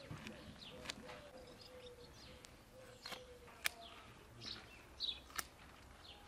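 Birds chirping in the background while scissors snip through green garden stalks a few times, each snip a sharp click, the loudest about three and a half seconds in.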